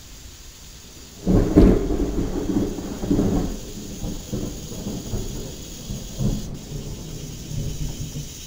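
Thunder: a sudden loud crack about a second in, then a deep rumble that rolls on in swells and slowly fades.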